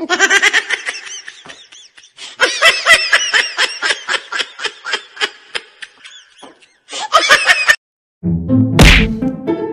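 High-pitched laughter in quick, repeated giggling bursts, stopping about 7.7 s in. Near the end, instrumental music comes in with a short, loud burst of noise.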